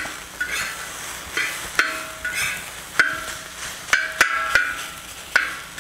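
Metal spatula striking and scraping a steel plow-disc wok while stir-frying rice, each stroke a short ringing clang, about two a second, over the steady sizzle of the frying.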